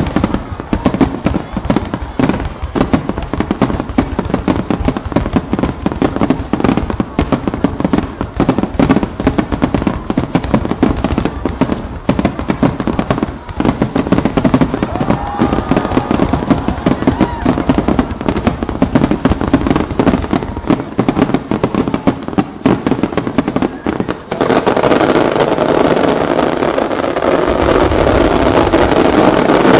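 Fireworks display: a rapid barrage of aerial shell bursts, many bangs and crackles a second. About 24 seconds in, a steady dense rush of noise takes over and grows louder as ground fountains fire.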